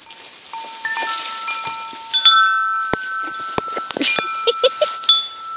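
Wind chimes ringing: several clear notes of different pitch sound one after another, each ringing on for a second or more, with a few sharp clicks between them.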